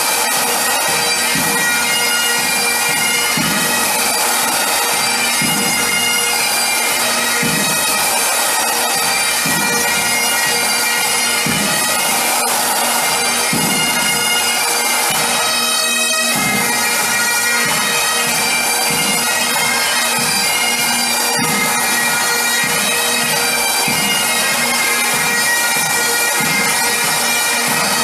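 Pipe band playing a tune: several Great Highland bagpipes sounding the melody over their steady drones, with a drum beating time underneath.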